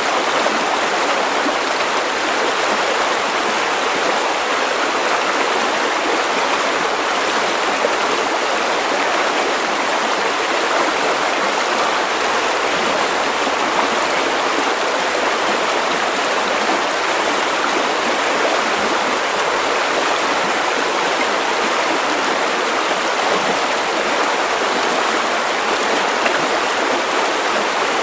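River water running steadily over stones, an even rushing and babbling with no breaks.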